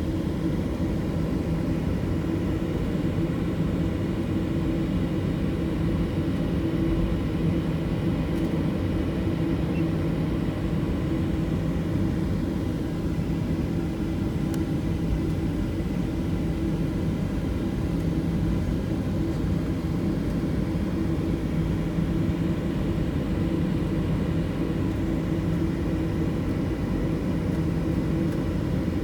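Boeing 737's jet engines running steadily: an even low rumble with a steady hum that neither rises nor falls.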